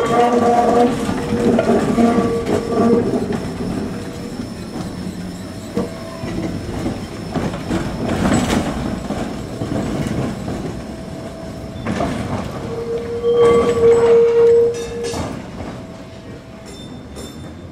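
A single-deck electric tram running past on street track, its running gear rumbling. A loud humming tone sounds about a second in and again about thirteen seconds in.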